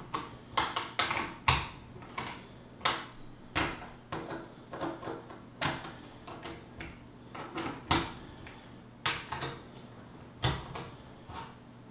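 Nut driver turning down small screws into a plastic instrument-cluster housing: short irregular clicks and knocks, one or two a second, as the tool seats on and tightens each screw and the housing is handled.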